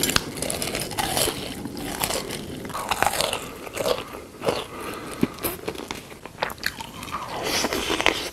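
Close-miked eating sounds: biting and chewing, with irregular sharp crackles and clicks.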